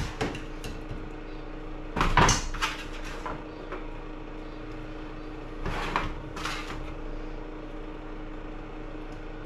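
Spatula scraping and knocking on a metal baking tray as roasted vegetables are lifted onto a plate. There are a few short clatters: the loudest about two seconds in, another around six seconds. A steady low hum runs underneath.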